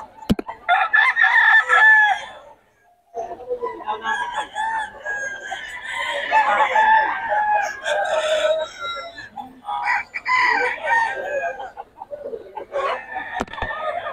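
Roosters crowing, several calls overlapping one another in long stretches, with a brief lull about three seconds in. A sharp click sounds just after the start.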